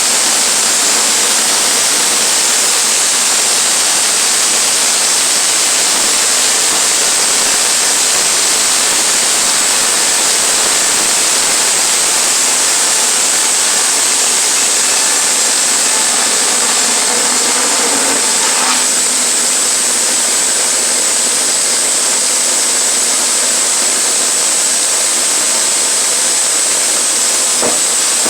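Sawmill running steadily, its blade cutting a pine log into 1x4 boards: a loud, even, hissing whine.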